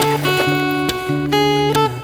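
Background music: strummed acoustic guitar with chords changing about every half second.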